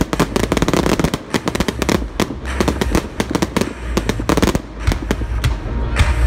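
Aerial fireworks bursting overhead: a dense, rapid string of bangs and crackles over a low rumble.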